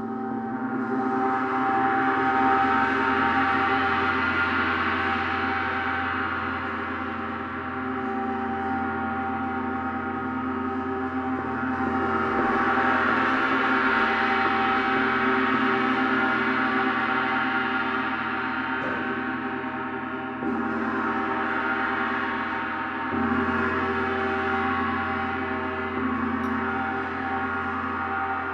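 Large planet gongs, tuned to planetary frequencies, played continuously: a dense ringing of many steady tones that swells and ebbs in slow waves. Two fresh strikes lift the sound again in the last third.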